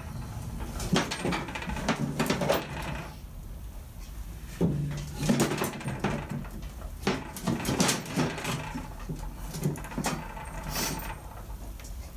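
Metal clunks, knocks and scrapes from a Harley-Davidson Sportster engine being shifted and worked out of its frame, with a few heavier thumps about five seconds in.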